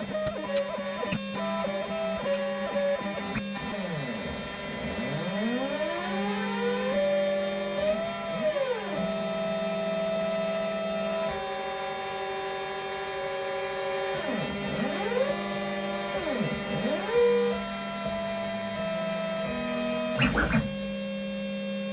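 DIY CNC machine cutting aluminium: its stepper motors whine in tones that hop between pitches and sweep up and down in arcs as the axes move, over a steady low hum. A brief knock sounds near the end.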